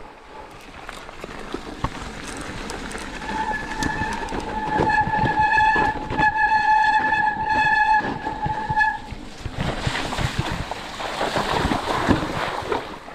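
Mountain bike rattling and knocking over rough trail, with a steady high-pitched brake squeal for about six seconds in the middle, then a rushing of wind and tyres near the end.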